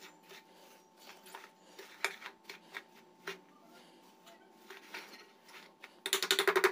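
Wire whisk stirring a stiff, mostly dry semolina-and-flour mix in a plate, with scattered clicks and scrapes of the wires against the plate. Near the end it breaks into a fast run of rapid whisk strokes, much louder.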